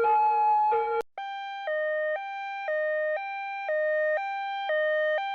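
Two-tone emergency-vehicle siren alternating between a high and a low note. About a second in it cuts off abruptly and a different, cleaner two-tone siren starts, switching notes about twice a second.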